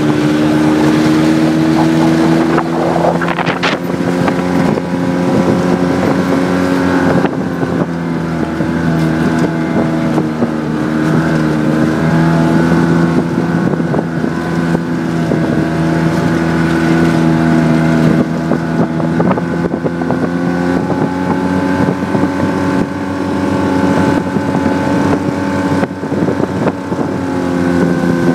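Ski-Doo snowmobile engine running steadily as it climbs a snowy slope, heard from the seat, its pitch wavering slightly as the throttle changes.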